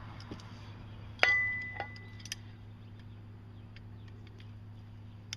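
A single sharp clink of steel on steel about a second in, ringing briefly with one clear tone, then a lighter knock and a few faint clicks: blacksmith's tools and a piece of hot-cut square stock striking the anvil. A steady low hum runs underneath.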